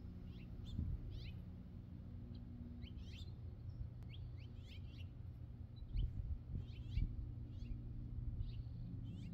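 Birds chirping: short, high, quickly falling chips in little clusters of two to four, scattered throughout, over a steady low hum. There are a couple of dull low bumps about six and seven seconds in.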